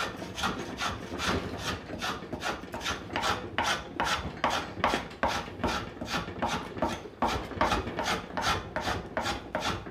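Wooden-bodied hand plane shaving a wooden table leg in quick, short, repeated strokes, about three a second, the blade scraping off thin shavings. This is the roughing of a chamfer on the leg.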